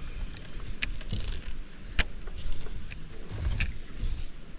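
Three sharp clicks from handling a spinning rod and reel, the loudest about two seconds in, over a low gusty rumble of wind on the microphone.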